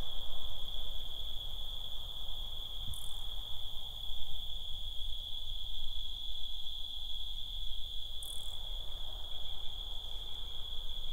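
Crickets trilling in one steady, unbroken high-pitched tone, with two brief higher chirps about three and eight seconds in, over a low background rumble.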